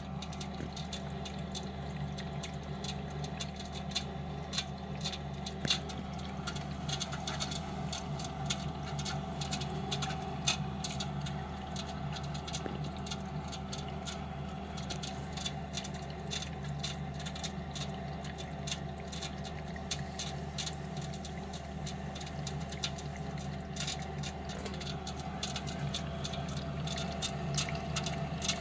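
Lenox furnace running with a steady low hum and rapid, irregular ticking clicks throughout, the ticking noise the owner is documenting.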